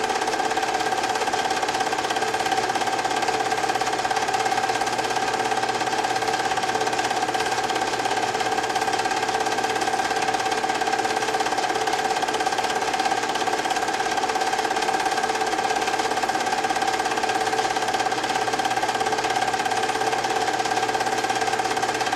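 Film projector running during a home-movie transfer: a steady mechanical whir with a constant hum.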